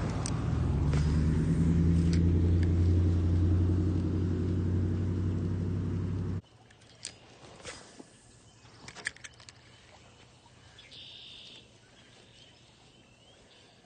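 An engine running steadily with a loud, low drone that cuts off suddenly about six seconds in. Faint clicks and ticks follow.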